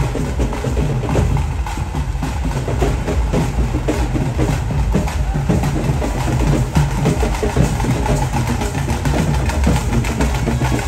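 Loud percussion music: rapid, continuous drumming over a deep bass drum.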